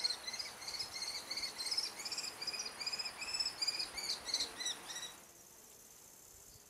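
Common kestrel chicks begging at the nest: a rapid run of short, shrill, repeated calls that stops abruptly about five seconds in, leaving faint background hiss.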